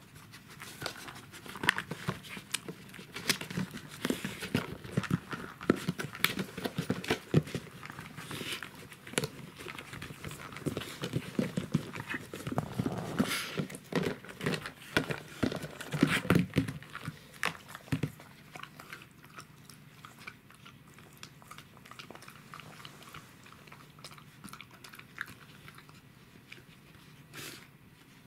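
Pembroke Welsh corgi nosing at and chewing on stacked plastic boxes: a busy stream of clicks, scrapes and knocks of hard plastic with chewing, thinning out after about 18 seconds, with one louder knock near the end.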